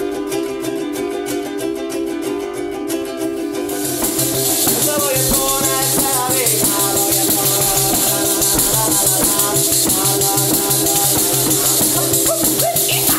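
Acoustic ensemble playing Sicilian folk music: plucked strings strummed in a steady rhythm, joined about four seconds in by a continuous high shaking percussion and a bass line, with a melody sliding up and down above.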